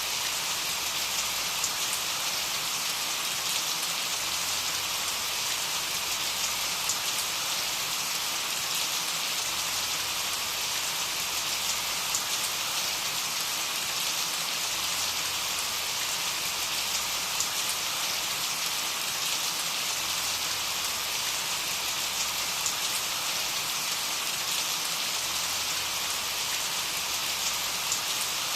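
Steady rain falling, an even hiss with scattered sharper drop taps.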